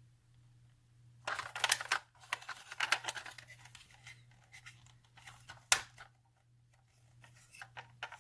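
Plastic toy ambulance being handled at close range: scraping, rustling and clicking of its plastic parts and doors, starting about a second in, with one sharp click near six seconds.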